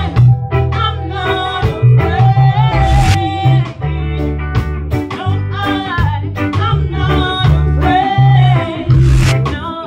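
Reggae band playing: a woman singing lead with long held notes about three seconds in and near the end, over electric bass, guitar and drums.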